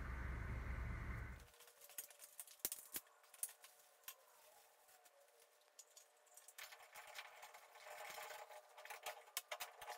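Faint metal clinks and rattles of bolts, bracket and tools as an electric hoist is bolted up to a ceiling bracket. There are a few sharp clicks about three seconds in and a busier run of rattling in the last few seconds. It opens with about a second of steady low rumble that cuts off suddenly.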